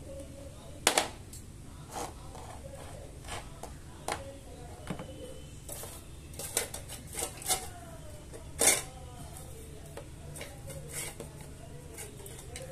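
Scattered sharp clinks and knocks of hard objects, a few seconds apart, the loudest about a second in and again near the end, over a low steady hum.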